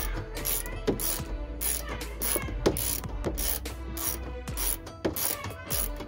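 Hand ratchet wrench clicking in quick back-and-forth strokes, about three a second, as bolts are tightened.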